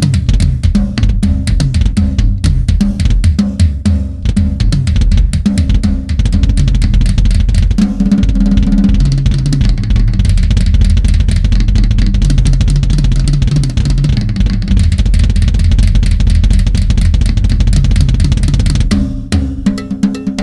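Drum kit solo played mostly on tuned toms and bass drum: quick separate strokes for the first several seconds, then an unbroken fast roll around the toms from about eight seconds in, breaking back into sparser single hits near the end.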